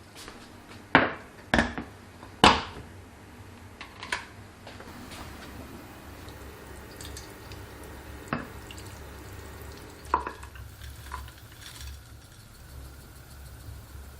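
Cooking sounds: a utensil stirring in cookware and knocking against it, with three loud sharp clinks between about one and two and a half seconds in and a few softer ones later, over a steady low hum.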